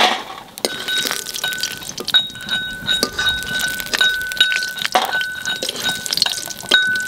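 Steel spoon scraping and clinking against a steel wok and plate as fried lentil dumplings are lifted out of the oil and dropped onto the plate: a run of sharp clinks, with short high ringing notes between them.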